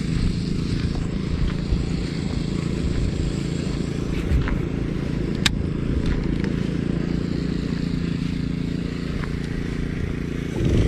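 Lawn mower engine running steadily as a low drone. One sharp click about five and a half seconds in.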